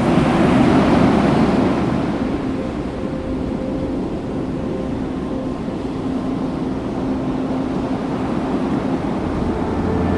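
Steady wash of ocean surf and wind on the microphone, swelling in the first couple of seconds and again near the end. Faint held music notes sit under it.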